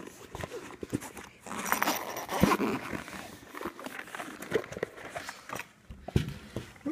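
Zipper of a nylon carrying case being run open, with irregular rasps, clicks and rustling of the case's fabric and a plastic bag as it is handled. The longest rasp comes about two seconds in.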